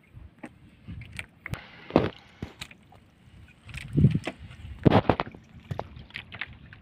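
Wet fishing net hauled by hand over a boat's gunwale: water splashing and dripping off the mesh, with irregular knocks and slaps against the hull, the loudest about two and five seconds in.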